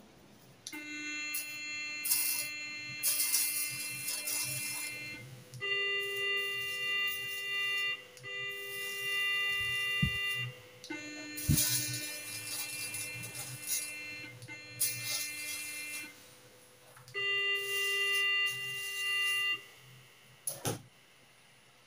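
Electrosurgical unit (Geister ESU-X 400-HT) sounding its activation tone in several tones of a few seconds each, alternating between a lower and a higher pitch, each with the hiss and crackle of the pencil electrode sparking on a cloth. The unit is delivering cutting/coagulation output in a test after a low-power fault repair.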